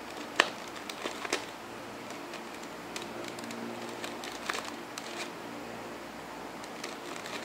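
Jia Xing Magic 2x2 plastic puzzle cube being turned by hand: scattered sharp clicks as its layers snap round, the loudest about half a second in, over a steady hiss.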